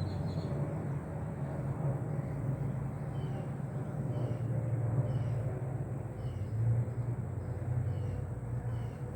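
Honeybees buzzing steadily around an open hive, a low continuous hum from the colony disturbed during inspection.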